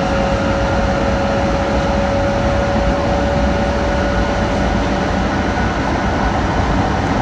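Steady rumbling running noise inside a Tohoku Shinkansen passenger car as the train travels, with a thin steady whine that fades out about five seconds in.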